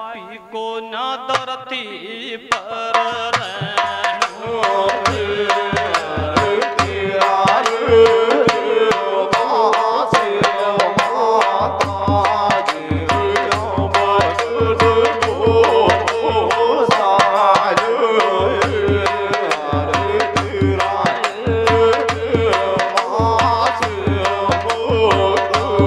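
Rajasthani folk bhajan music: a quick drum beat with small hand cymbals (manjira) and a frame drum over a steady held melody. Deeper drum strokes join a little before halfway.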